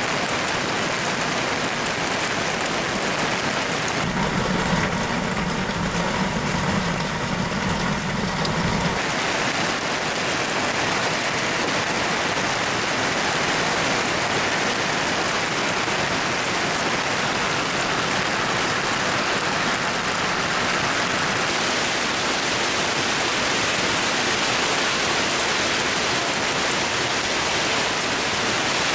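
Large hail and heavy rain pelting down, a dense, steady noise. A low hum joins it from about four to nine seconds in.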